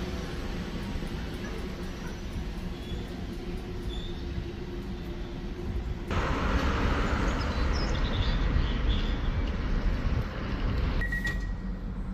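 Train running at a station platform: a steady low rumble with a faint hum, which turns louder and noisier about six seconds in and drops back near the end.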